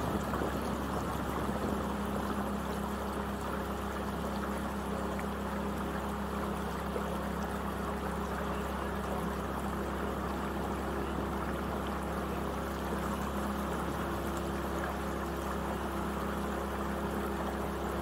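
A small marsh boat under way: a steady motor hum with water rushing and swishing along the hull.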